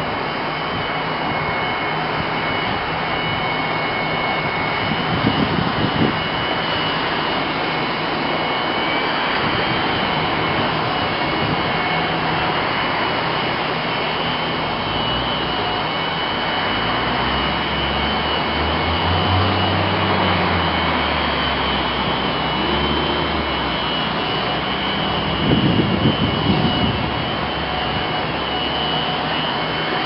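Toro corded electric blower-vac running in vacuum mode: a steady motor whine over rushing air. Two brief louder bursts come about five seconds in and again near the end, and a lower rumble joins for a few seconds around the middle.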